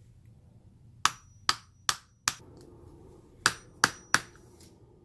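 Seven sharp clicks with a faint metallic ring: four about 0.4 s apart from about a second in, then three quicker ones. They come from the newly fitted arbor lock and cap of a Stadea SWP101K stone wet polisher being worked.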